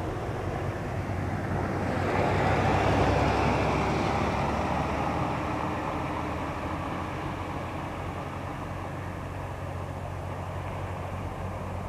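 Light single-engine piston airplane engine running at low power across the airfield, a steady drone that swells louder about two seconds in and then fades back down.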